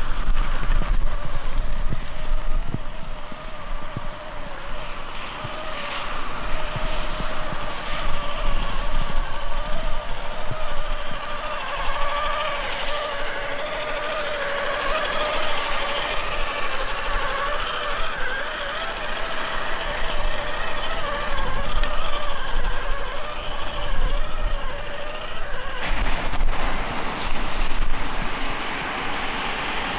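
Electric whine of an RC rock crawler's HobbyWing XeRun sensored brushless motor and drivetrain, pulling the truck over wet rock, rising and falling in pitch with the throttle. The whine drops out near the end.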